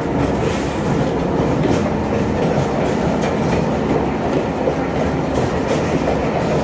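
South Australian Railways 'Red Hen' diesel railcar travelling along the track, heard from inside the car: a steady running noise of engine and wheels, with a few faint clicks at irregular moments.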